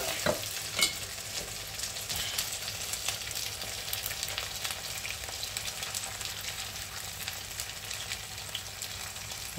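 Whole fried red sea bream sizzling and crackling in hot oil in a tilted frying pan as the oil is drained off, with a couple of light clicks within the first second.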